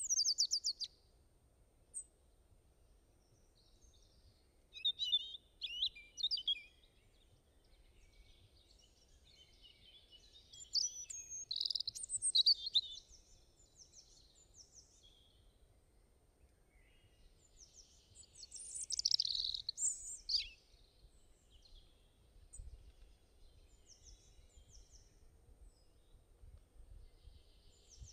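Small birds chirping and singing in separate phrases of quick, high notes, loudest about 12 and 19 seconds in, over a faint low rumble.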